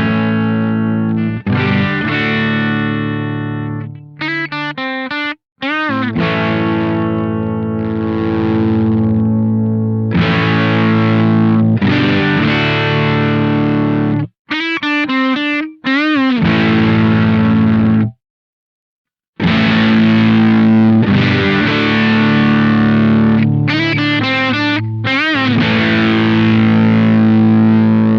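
Electric guitar played through a Witchcraft Velouria FX distortion/preamp pedal: heavily distorted chords left to ring, broken by two short runs of notes bending up and down and a brief full stop past the middle.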